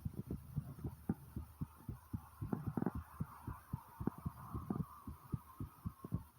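A person's heartbeat picked up close, fast and pounding hard after exertion: a quick, steady run of short low thumps.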